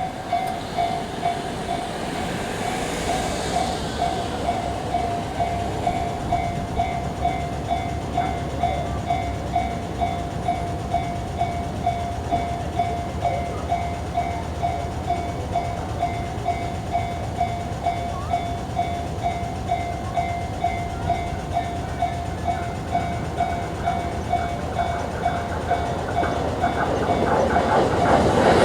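Japanese railway level crossing's warning bell ringing over and over, about twice a second. A low train rumble runs underneath and grows much louder near the end as a train arrives at the crossing.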